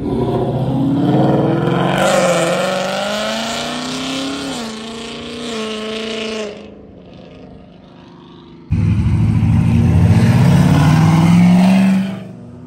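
Muscle-car engine revving hard at high rpm, its pitch wavering up and down, then falling away about six and a half seconds in. About nine seconds in, another engine comes in suddenly and loud, accelerating hard with a climbing pitch, then drops off near the end.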